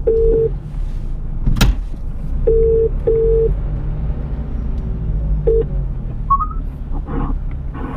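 A telephone ringback tone rings in double pulses, the Australian ring-ring cadence, about every three seconds inside a Nissan Navara NP300's cab. It breaks off after a short last pulse about five and a half seconds in as the call is answered. Under it runs the steady low drone of the truck on the move, and there is one sharp click about a second and a half in.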